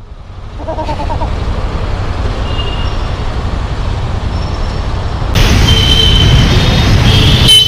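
City road traffic heard from a motorcycle stopped in a jam: a steady low rumble of idling engines. About five seconds in it turns abruptly louder and noisier, with a few brief high tones.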